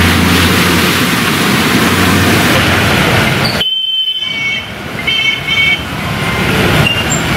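Vehicles driving through floodwater on a city street: engine hum under a steady rush of water splashing off the tyres. After a cut, the water noise goes on with several short, high horn beeps in the second half.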